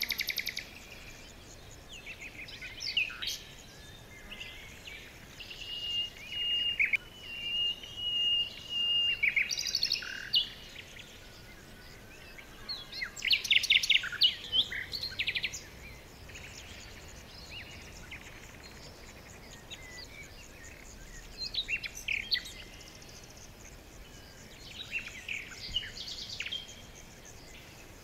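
Songbirds chirping and singing in short phrases of rapid chirps and trills, with quiet gaps of several seconds between phrases.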